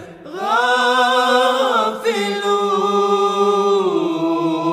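A religious nasheed sung without instruments: a single sung line stretches the end of a phrase of prayer into two long held notes, the second sliding lower near the end.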